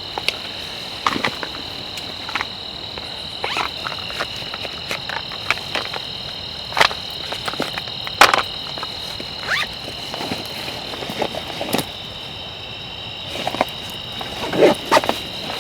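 Night insect chorus: a steady high-pitched trill that runs without a break, with scattered sharp clicks and knocks over it.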